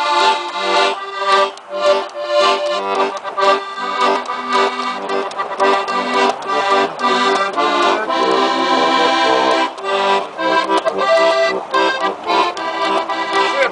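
Button box accordion playing a lively tune of quick melody notes over a pulsing bass-and-chord accompaniment.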